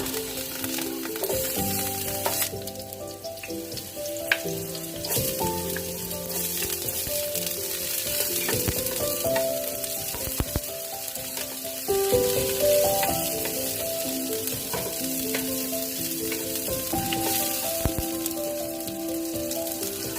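Food frying and sizzling in hot oil in a pan, with a few clicks from stirring, over background music.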